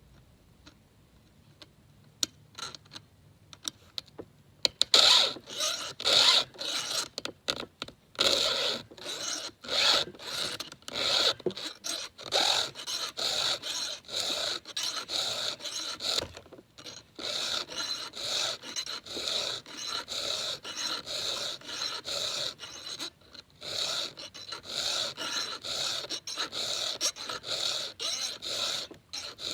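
Hand file scraping across the teeth of a Husqvarna X-Cut chainsaw chain in quick, even strokes, about two a second, with a few short pauses. The strokes begin about five seconds in, after a few faint clicks.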